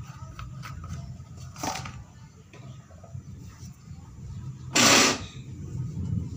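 Gas stove burner running under a kadai of heating oil, a low steady rumble. A short burst of noise comes about a second and a half in, and a louder, brief burst about five seconds in.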